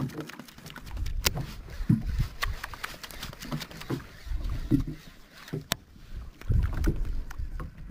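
Small waves slapping and sloshing against the hull of an inflatable kayak at sea, in uneven low thuds, with a scatter of short sharp clicks and knocks, one louder click about three-quarters of the way through.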